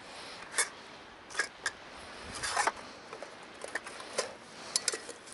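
Irregular crunching steps on gravelly ground and dry grass, about eight sharp crunches at uneven intervals.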